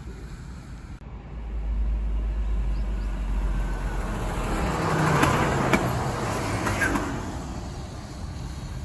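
A road vehicle passing close by on asphalt. A deep engine rumble gives way to tyre noise that swells to its loudest about five to six seconds in, with a few sharp clicks, then fades away.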